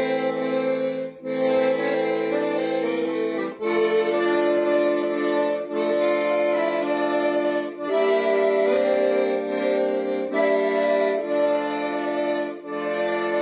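Castiglione piano accordion playing sustained chords and a melody, the sound breaking off briefly every couple of seconds between phrases.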